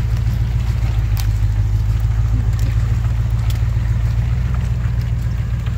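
Range Rover Classic's 3.9-litre V8 running as a steady low rumble with no revving, as the car crawls through mud with its wheels spinning, with scattered light clicks over the engine.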